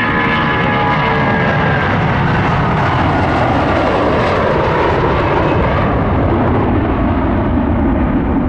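Twin-engine FedEx Express jet passing close by on the runway, its engines loud and steady, with an engine whine that falls in pitch as it goes past. The sound gives way to a broad rush that dulls over the last few seconds.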